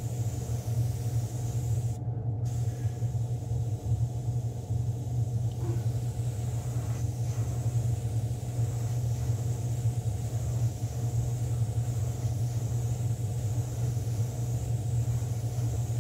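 Spray booth exhaust fan running with a steady low hum.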